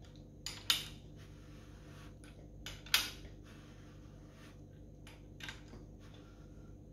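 Freshly assembled Holden 253 V8 bottom end turned over by hand with a breaker bar on the crankshaft nose, rotating freely: scattered light metallic clicks and clinks, the sharpest about three seconds in, over a low steady hum.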